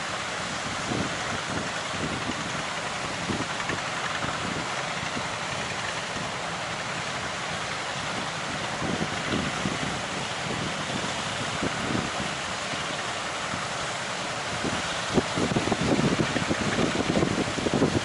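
Steady rush of ocean surf with wind buffeting the microphone in low rumbling gusts, which grow stronger near the end.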